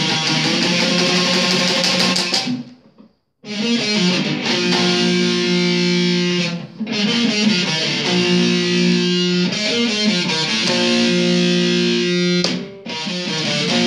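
Stratocaster-style electric guitar playing swing chords and held notes. The playing stops dead for under a second about three seconds in, with two brief breaks later.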